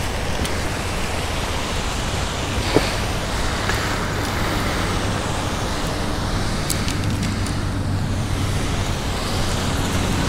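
Steady background rumble of road traffic with a low hum, and one brief click a little under three seconds in.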